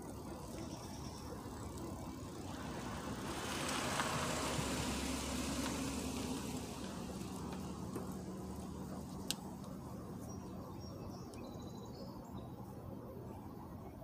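A vehicle driving past, its noise swelling to a peak about four seconds in and fading away over the next few seconds, over a steady low hum. A single sharp click about nine seconds in.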